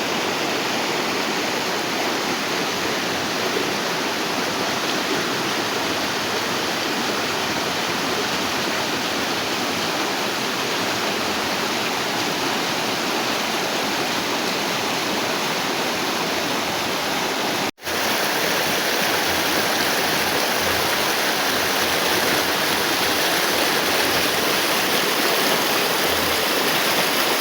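Clear spring-fed stream rushing and splashing steadily over its bed, with a momentary dropout about two-thirds of the way through.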